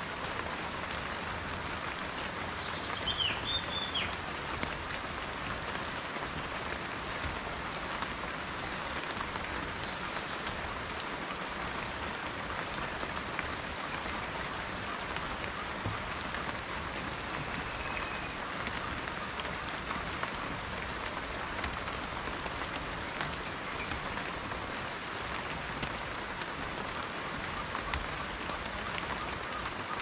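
Steady tropical rain falling on dense forest foliage, an even hiss of countless drops. A brief high chirp sounds about three seconds in.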